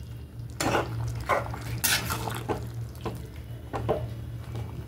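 Spatula stirring ghee into a thick, milky vegetable curry (dudh shukto) in a pan, scraping and knocking against the pan about every half second, over a steady low hum.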